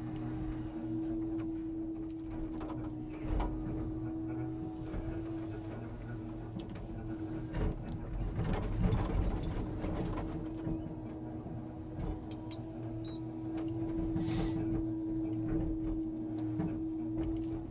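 Scania timber truck's hydraulic log crane at work: a steady hum from the engine-driven hydraulics, with knocks and scraping of logs being handled, loudest about eight to ten seconds in, and a short hiss near the end.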